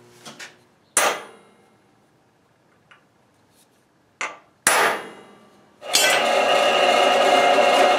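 Hammer striking a center punch on a steel plate: a sharp ringing strike about a second in, then two more strikes a half second apart past four seconds, the second louder. From about six seconds a drill press runs steadily.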